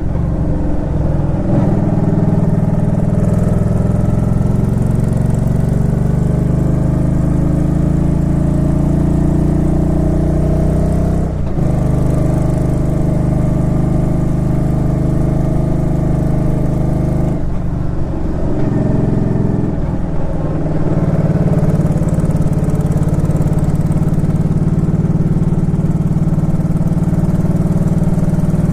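Suzuki Intruder Classic 400 V-twin engine running steadily while the motorcycle is ridden, its pitch breaking briefly about a third of the way in and shifting again about two-thirds in.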